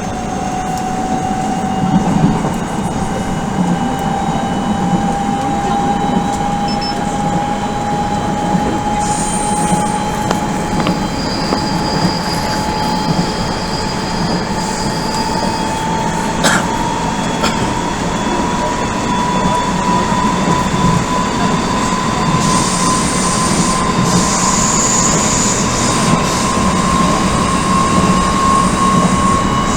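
Odakyu 1000 series train running, heard from inside the car: a steady whine from its Mitsubishi GTO-VVVF traction drive that rises slowly in pitch as the train gains speed, over the rumble of the wheels on the rails, with a sharp click about halfway through.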